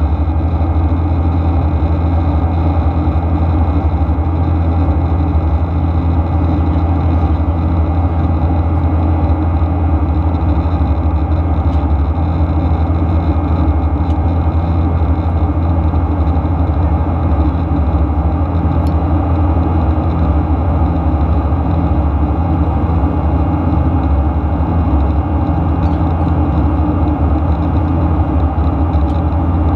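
Steady, deep in-flight cabin noise of a Boeing 737-800 heard from a window seat beside the wing: the even drone of its CFM56-7B turbofan engines and the rush of air past the fuselage.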